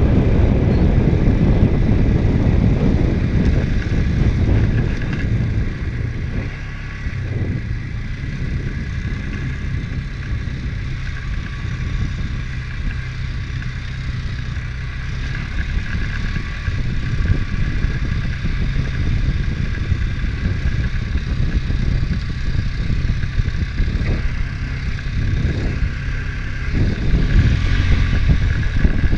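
ATV engine running as the quad rides along a trail, with a steady low rumble. The engine eases off a few seconds in and picks up again near the end.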